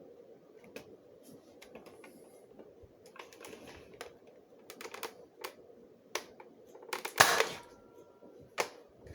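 Plastic clicks and rattles of a single-shot Nerf sniper-rifle blaster being handled and loaded, then a short, loud burst about seven seconds in as it fires a dart, followed by one more sharp click.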